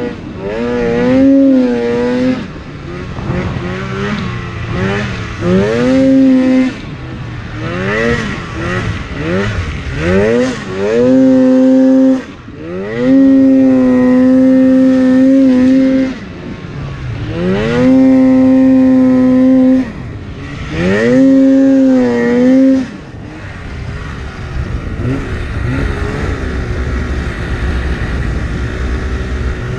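The 800 cc two-stroke twin of a 2016 Polaris Axys RMK 800 snowmobile revving hard in repeated throttle bursts, its pitch sweeping up and holding high for a few seconds at a time, once for about three seconds. For the last several seconds it drops back to a low, rough rumble as the sled sits in deep snow.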